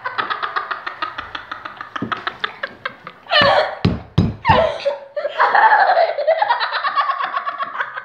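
Children laughing hard: a long run of quick ha-ha pulses, a few loud bursts about three and a half seconds in, then longer, drawn-out laughs.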